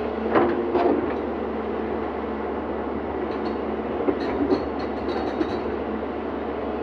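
Hydraulic excavator's diesel engine running steadily, with two loud knocks about half a second and a second in, and a few lighter knocks and clicks around four to five seconds in.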